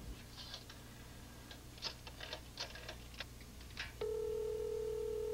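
A telephone being dialled, a series of irregular clicks, then about four seconds in the steady ringing tone of the line as the call rings through at the other end.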